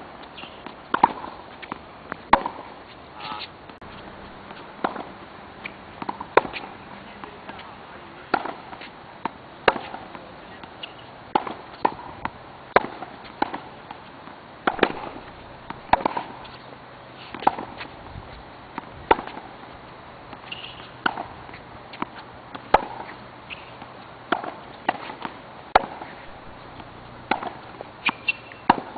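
Tennis balls struck by a racket and bouncing on the court in a rally or drill: sharp pops about once a second.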